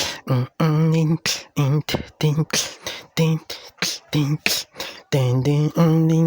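A person beatboxing: short hummed vocal notes alternating with sharp hissing and clicking mouth sounds in a quick rhythm.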